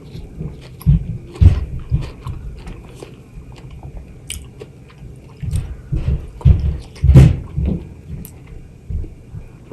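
Close-miked biting and wet chewing of seasoned fresh mango. The chewing comes in a cluster about a second in and again, louder, from about five and a half to eight seconds in.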